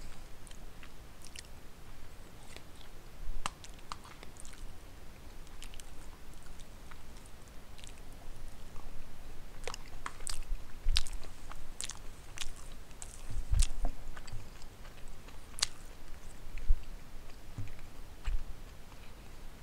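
A person chewing a mouthful of pot roast, carrots and potatoes with the mouth closed, close to the microphone. Scattered soft wet clicks and smacks of the mouth come at an uneven pace, with a few low thumps.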